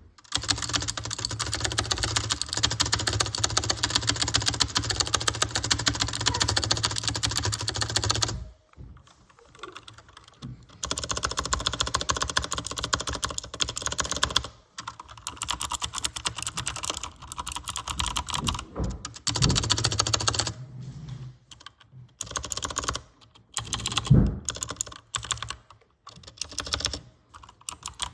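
Fast typing on a computer keyboard in bursts of rapid keystrokes with short pauses between them, and one louder, deeper keystroke late on.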